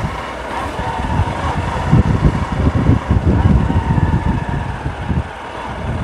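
Honda motorcycle engine running while riding at low speed, mixed with a low rumble that grows louder about two seconds in and eases near the end.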